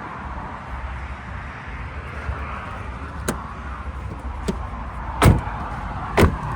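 Doors and catches in a camper van conversion being worked: two light clicks, then two louder thumps about a second apart near the end. A steady background hiss runs underneath.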